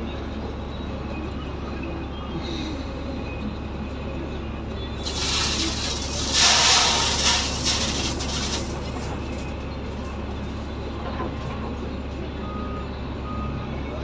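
CAT 730C articulated dump truck's diesel engine running steadily, heard from inside the cab, with a loud hiss of air about five seconds in that lasts some three seconds. Faint short beeps come near the end.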